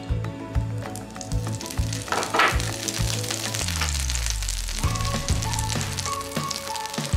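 Butter sizzling as it melts in a hot frying pan, the hiss starting about a second in as it is pushed around with chopsticks, with background music underneath.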